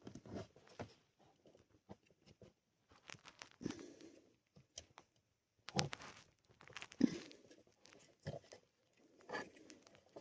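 Faint, scattered clicks and scrapes of a pocket knife blade prying and scraping at plastic parts. A few louder clicks stand out, about four seconds in, near the middle, and late on.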